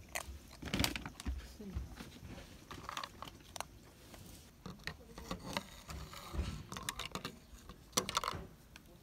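A young Siamese kitten eating from its dish, making small irregular chewing and clicking sounds.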